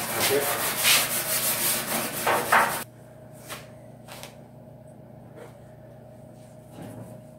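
Hand scraping and rubbing on a truck body panel, a rough grating noise in a few uneven strokes that stops abruptly about three seconds in. After that only a faint steady hum and a few light clicks.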